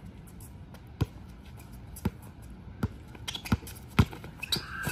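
Basketball being dribbled on an outdoor hard court: single sharp bounces about once a second, coming quicker in the last second and a half, the loudest about four seconds in.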